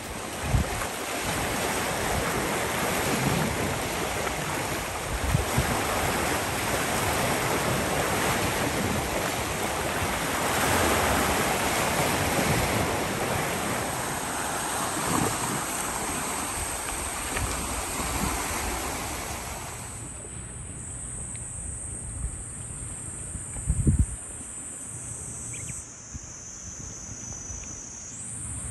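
Waves and wind at the seashore, with wind buffeting the microphone. About two-thirds of the way in, this gives way to a quieter background with a steady high-pitched insect trill, and there is a single thump a few seconds before the end.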